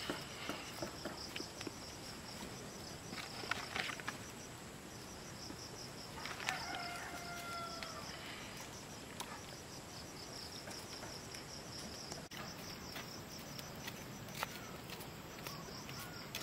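A rooster crows once, about six and a half seconds in, a pitched call lasting about a second and a half, over a steady pulsing chirp of insects. A few sharp clicks come about three and a half seconds in.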